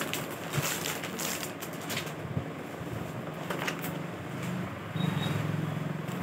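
Plastic garment packaging crinkling and rustling in irregular bursts as a folded t-shirt is handled and unwrapped, over a steady low hum.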